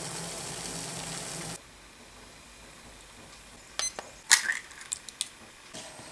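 Water boiling in a saucepan over a gas burner, a steady hiss that cuts off after about a second and a half. Then a handful of sharp clicks from a digital kitchen timer being set for eight minutes, the loudest about four seconds in.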